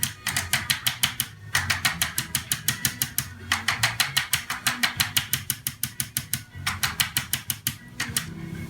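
Arthrostim Neurological Hammer, an electric chiropractic adjusting instrument, tapping rapidly: trains of sharp clicks in runs of one to three seconds with brief pauses between, delivering a high-speed, low-force spinal adjustment.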